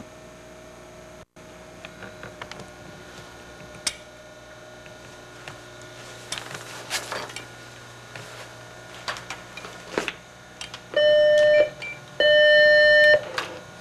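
Two long electronic beeps near the end, each a steady mid-pitched tone lasting about a second, with a short gap between, following scattered faint clicks and rustling of papers and desk items.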